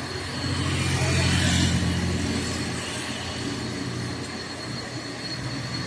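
Heavy truck's diesel engine passing while pulling up a grade. Its low drone is loudest about a second and a half in, then fades as the truck moves away.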